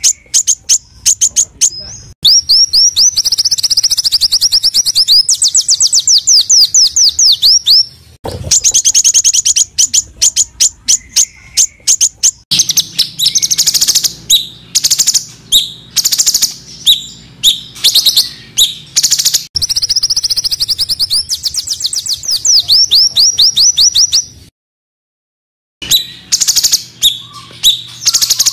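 Small songbirds giving fast, dense strings of high chirps, the harsh rapid 'tembakan' phrases that bird keepers use to tutor songbirds. It comes as several recordings joined one after another, each with its own note pattern, with a pause of about a second near the end.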